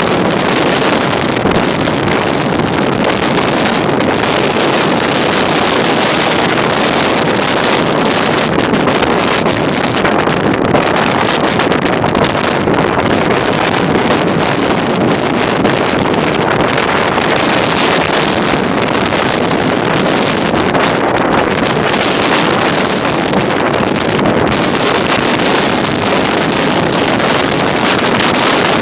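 Strong wind at sea blowing across the microphone: a loud, steady rushing noise.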